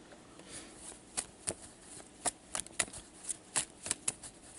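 A deck of playing cards being handled and dealt out: a string of light, crisp card snaps and taps, a few a second, at uneven intervals.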